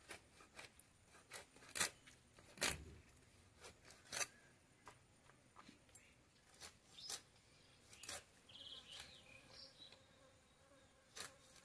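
Fish being cut into pieces on a bonti, a curved blade fixed upright in a wooden base: irregular clicks and scrapes as the flesh and bones are pushed through the blade, the loudest strokes about two seconds in, one with a dull knock.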